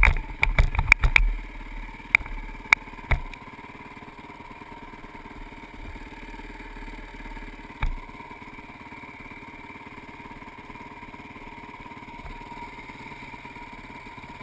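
Honda CRF450X dirt bike's single-cylinder four-stroke engine, with a run of sharp knocks and clatter over the first few seconds as it crosses rough ground. Then the bike settles into a steady idle, with one more thump about eight seconds in.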